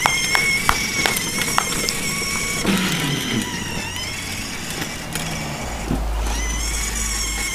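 Battery-powered ride-on toy car's electric motor and gearbox whining steadily as it drives, with a few sharp clicks in the first two seconds. The whine cuts out briefly about six seconds in, then picks up again, with a low rumble over the last two seconds.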